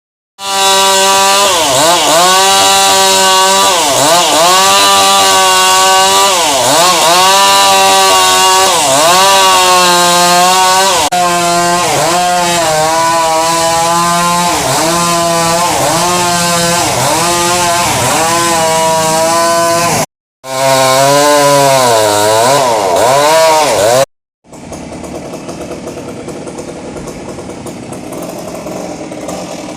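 Chainsaw engine at high revs cutting wood, its pitch dipping under load and picking up again about once a second. The sound cuts off abruptly twice, and near the end it gives way to a quieter, steadier sound.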